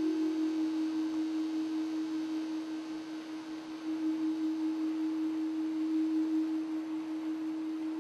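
A single pure, steady drone tone held unbroken as the dance's musical accompaniment, wavering slightly in loudness.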